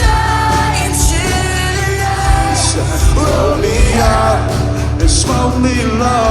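Live rock band playing loudly, with singing over heavy bass and drums, and some shouting.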